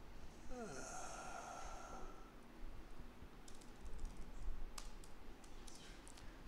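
Laptop keyboard keystrokes as a terminal command is typed: a run of quick, separate clicks in the second half. Before them, about half a second in, comes a short breathy sound with a falling pitch, like a sigh.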